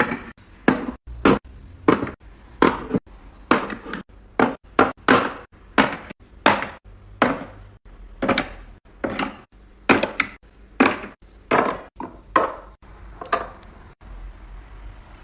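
Containers and dishes being set down and shuffled on hard shelves: a quick series of knocks and clinks, one or two a second, that stops near the end.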